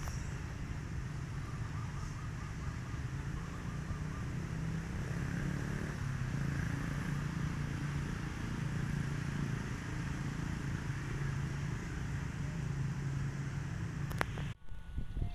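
Steady low rumble of road traffic engines, cars and motorcycles, cut off abruptly near the end.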